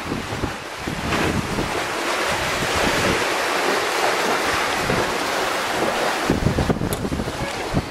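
Water rushing and splashing along a sailboat's hull under sail, with wind buffeting the microphone. The low buffeting grows heavy in the last second and a half.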